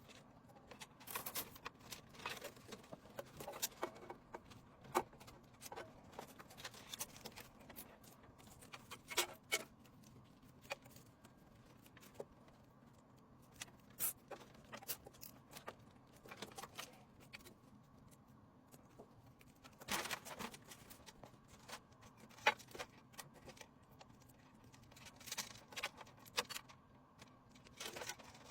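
Irregular light clicks, taps and rattles of computer parts and screws being handled and fitted during a PC assembly, over a faint steady low hum.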